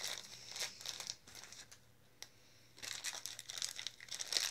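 Plastic toy packaging being crinkled and unwrapped by hand, in crackly bursts that pause about two seconds in, with a single click during the pause.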